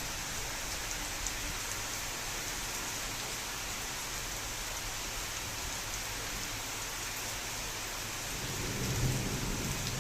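Steady rain falling, with a few faint drop ticks. A low rumble of thunder swells in near the end.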